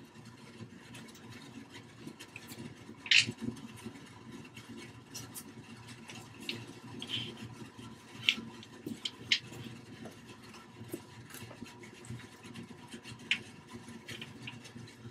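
Scattered light knocks and clicks as the wooden board panels of a box are handled and shifted, the sharpest about three seconds in, over a low steady hum.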